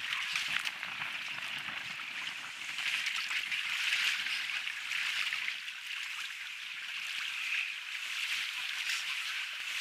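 Choppy sea water washing and splashing in a steady noisy wash that surges and eases every second or so.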